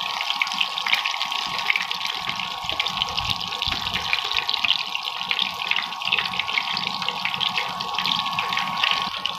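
Besan-battered pumpkin flowers shallow-frying in mustard oil in a non-stick pan, the oil sizzling and crackling steadily on a low flame.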